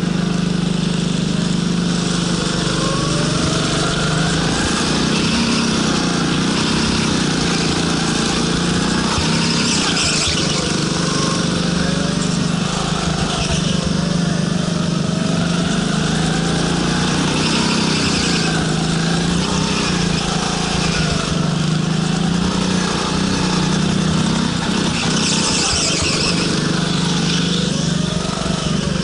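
Go-kart engine running hard on track, its revs rising and falling again and again as the kart accelerates and slows through the turns, over a steady low drone.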